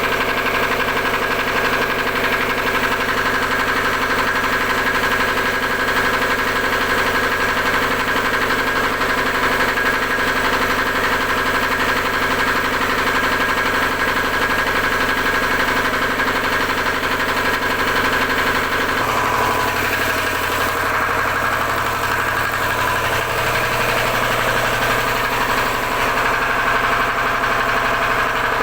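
Generator engine running steadily after being started; its tone shifts noticeably about two-thirds of the way through.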